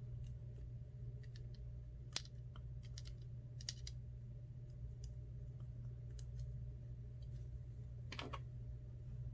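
Scattered small clicks and taps of repair tools on iPhone parts during reassembly, with a sharper click about two seconds in and a brief scrape near the end, over a steady low hum.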